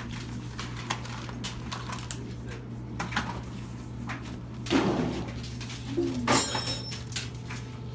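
Scattered clicks and knocks of hand tools and bike parts being handled during BMX assembly, with a louder knock about five seconds in and a short metallic clink that rings briefly a moment later, over a steady low hum.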